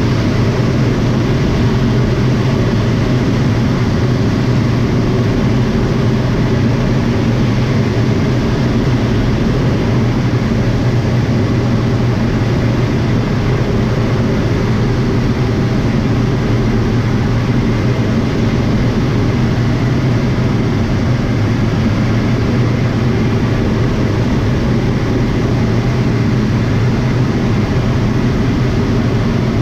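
Light airplane's piston engine and propeller running steadily, a loud unbroken drone.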